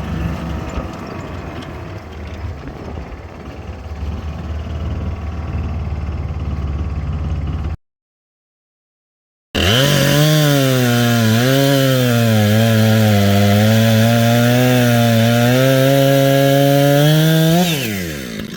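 Gasoline chainsaw cutting through ash logs: after a stretch of lower, rougher engine running, the sound cuts out to silence for under two seconds, then the saw runs loud under load, its pitch dipping and recovering as the chain bites, and drops off near the end as the throttle is released.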